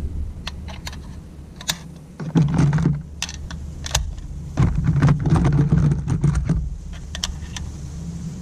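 A run of sharp clicks and taps, as of small hard objects being handled, with two stretches of low rumble partway through.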